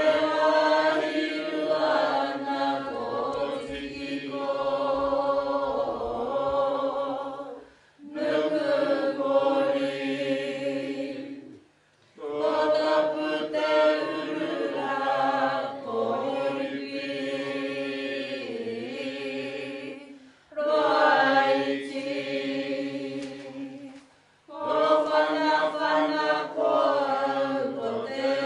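A group of voices chanting a Māori mōteatea, a traditional sung lament, in long phrases broken by brief pauses about four times.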